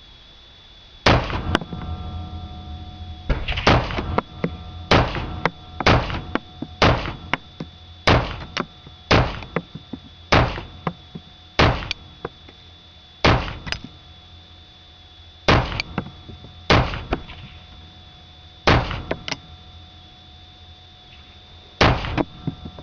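Rock River AR-15 CAR4 rifle in .223 fired semi-automatically: about twenty single shots at an uneven pace, sometimes two in quick succession, sometimes a second or more apart, starting about a second in.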